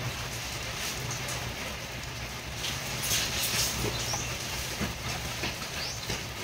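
Handling noises from work on an LED TV's power-supply board: scattered clicks and rustling, louder about three seconds in, over a steady low hum.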